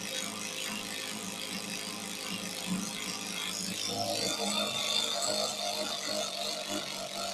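Hyper Tough 12-volt brushless compact impact driver hammering continuously as it drives a long screw slowly into a thick wooden beam under heavy load. The hammering grows louder about four seconds in.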